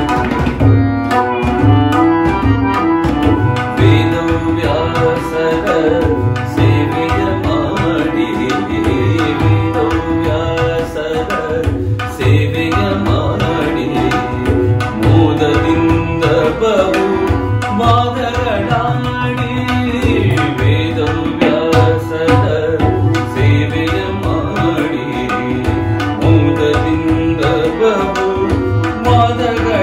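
Harmonium and tabla playing a devotional song accompaniment. The harmonium holds steady reedy notes and melody, and the tabla keeps a continuous rhythm with deep, repeated bass-drum strokes.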